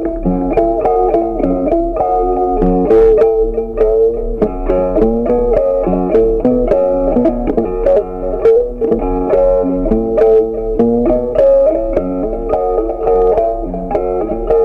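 Background music: a plucked guitar melody with bass, at a steady level.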